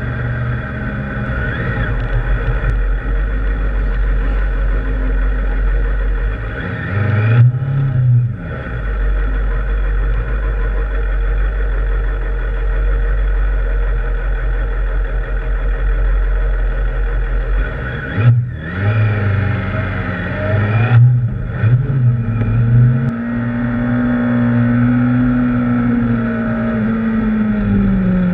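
Kawasaki ZX-6R inline-four motorcycle engine running at low speed and idling, with a few short throttle blips. Near the end it revs up and eases off as the bike pulls away.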